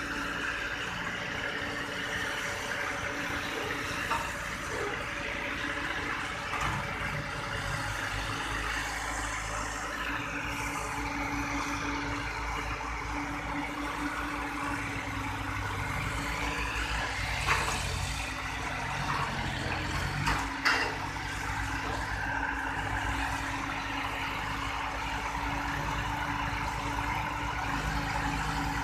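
ACE mobile crane's diesel engine running steadily, with a couple of short knocks past the middle.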